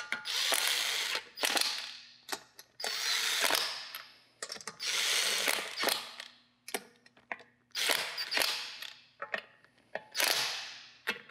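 Impact wrench running lug nuts onto a wheel in about six short bursts, each starting sharply and fading over about a second as the trigger is let go, with short clicks between them. The nuts are only being snugged, not torqued down.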